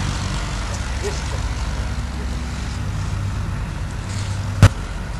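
Steady low droning hum with one sharp click or knock about four and a half seconds in.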